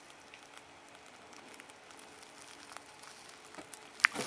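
Faint, scattered crinkles and ticks of clear packing tape being picked at with a fingernail and peeled away from bubble wrap, with a few sharper crackles near the end.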